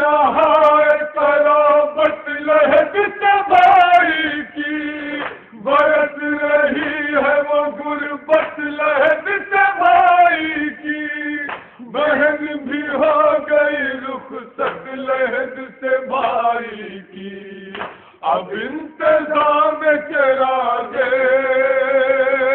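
Men chanting a noha, a Shia mourning lament, with long held notes broken by short pauses.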